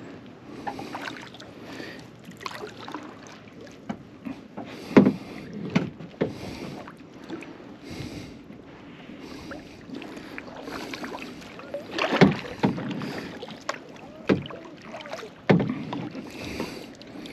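Kayak paddle strokes: the blades dip and splash in lake water in an uneven rhythm, with several sudden louder hits, the strongest about 5 and 12 seconds in.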